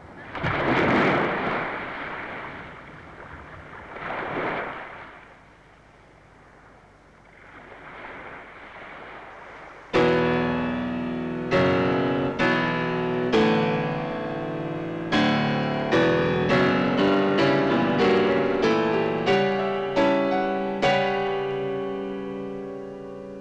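Sea surf swelling and falling back three times, a hiss without pitch. About ten seconds in a piano comes in suddenly with loud, slow chords, each struck and left to ring, growing softer near the end.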